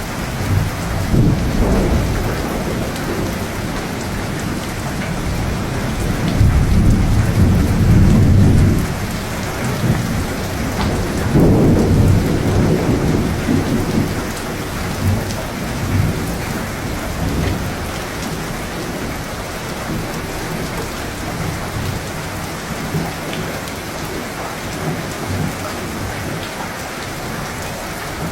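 Thunderstorm: steady rain falling, with rolling rumbles of thunder that swell loudest twice in the first half, then rain alone.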